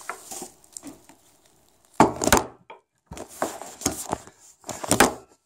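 Handling noise of a camera being picked up and moved: a hand knocks and rubs against the microphone. There are faint clicks at first, a sudden loud knock about two seconds in, and after a short gap more scraping and knocks.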